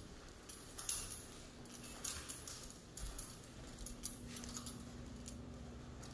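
Faint rustling and light clicks from the phone being carried and handled while walking, over a faint low hum that comes and goes.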